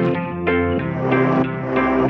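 Background music: plucked guitar notes over a bass line, with a new note or chord about every half second.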